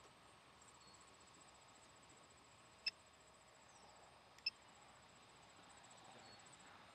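Near silence, with a faint, high, steady trill of insects and two short sharp clicks about a second and a half apart.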